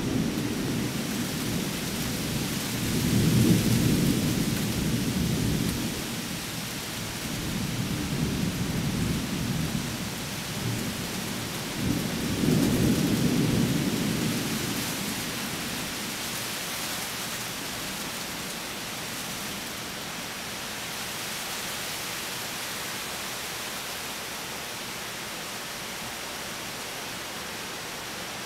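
Thunder: a long rolling rumble that starts suddenly, swells three times, then dies away slowly, over a steady hiss.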